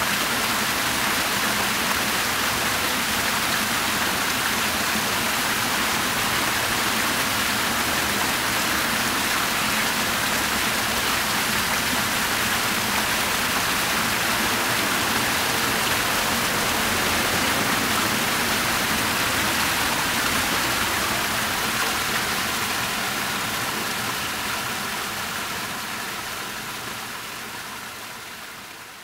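Fountain water splashing steadily, spilling from an upper basin and from small arcing jets into the pool below. It fades out over the last several seconds.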